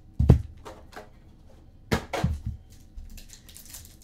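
Cardboard box of Panini Absolute football cards being handled and opened on a table: one loud knock about a quarter second in, a few lighter knocks around two seconds in, and faint rustling of packaging near the end.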